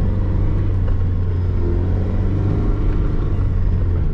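Zastava Yugo's four-cylinder engine running steadily, heard from inside the cabin as the car drives along a rough dirt track.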